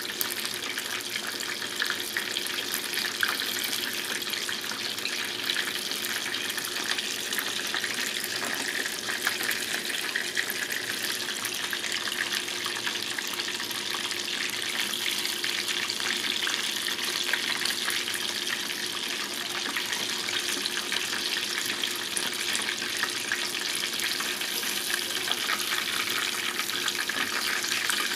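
Flour-coated chicken pieces deep-frying in hot oil in a pot: a steady sizzle with dense crackling.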